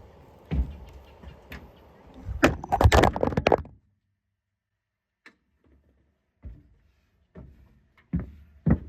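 Knocks and thuds from handling a pickup's bed topper and its rails, with a burst of loud clattering knocks a few seconds in. The sound then cuts out completely for a moment before a few more single knocks.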